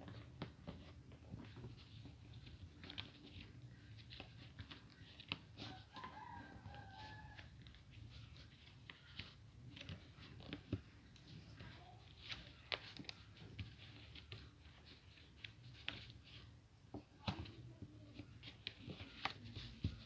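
A sheet of paper being folded and creased by hand: faint rustling and small scattered clicks as the fingers press the folds. About six seconds in, a short pitched call lasting a second or so.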